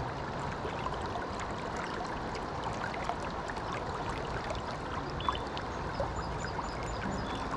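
River water rushing and lapping at the bank close to the microphone, a steady even wash with a few faint ticks.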